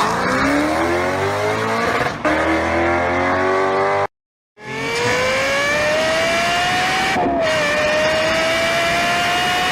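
Racing V8 engine accelerating hard, its pitch climbing through the revs with a gearchange about two seconds in. After a short break, a second, higher-pitched racing engine revs upward, dipping briefly at an upshift.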